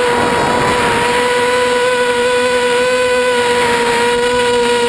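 Mini FPV quadcopter's brushless motors and propellers giving a steady whine at a nearly constant pitch, with wind rushing over the onboard camera's microphone.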